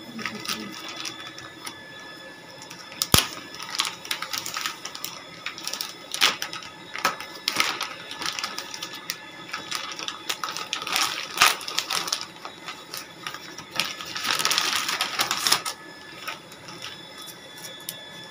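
Handling noise from unpacking: scattered clicks and knocks, with a sharp click about three seconds in, and a plastic bag crinkling for a couple of seconds about three-quarters of the way through.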